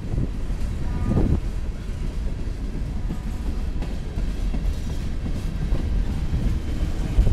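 Freight cars of a CSX local freight train rolling past close by, their steel wheels rumbling and clacking over the rail joints, with a louder knock near the end.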